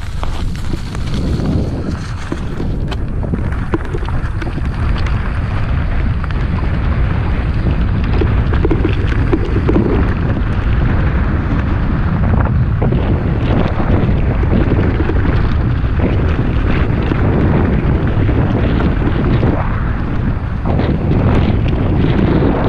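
Mountain bike riding over a stony, cobbled track, its tyres rumbling and rattling on the stones under heavy wind noise on the microphone.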